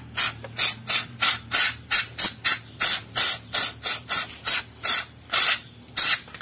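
Aerosol throttle-body cleaner sprayed through a straw nozzle in quick short hissing bursts, about three a second, into a dirty throttle body to wash out carbon deposits.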